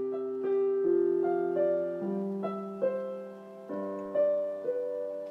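Background piano music, a slow melody of sustained notes.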